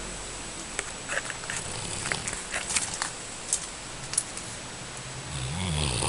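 A few scattered light clicks and taps, then near the end a single slow snore, a low rising-and-falling drone.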